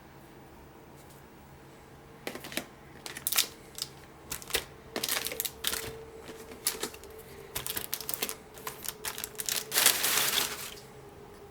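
Pokémon trading cards and their packaging being handled: an irregular run of sharp clicks and short rustles, ending in a longer rustle near the end.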